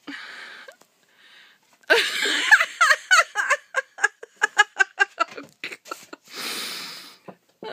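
A person laughing hard. About two seconds in comes a run of quick, pitched 'ha' pulses lasting some three seconds, with breathy gasps before and after.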